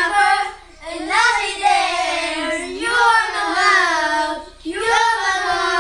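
Children singing a song in long held phrases, breaking for breath about a second in and again near the end.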